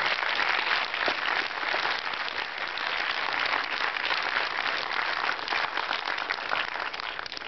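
Audience applauding: many hands clapping in a dense, steady patter that eases off near the end.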